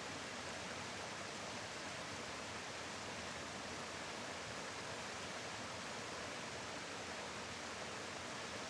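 Steady rush of a waterfall: falling water making an even, unchanging hiss.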